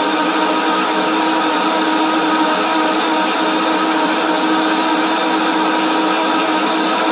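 Countertop blender running steadily, blending a thick berry smoothie: a loud, constant motor whine that holds one pitch throughout.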